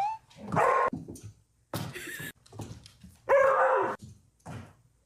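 Dog vocalizing in short outbursts: a rising whine at the start, then several yips and barks, the loudest about three and a half seconds in.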